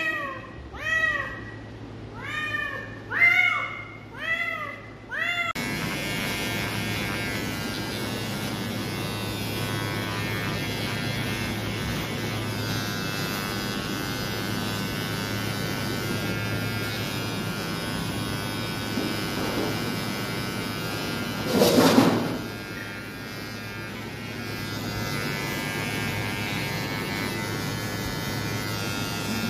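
A domestic cat meows about five times, each a rising-then-falling call. After that, electric animal clippers run with a steady hum as they clip the cat's fur to prepare it for neutering. About three-quarters of the way through, a brief loud sound breaks over the hum.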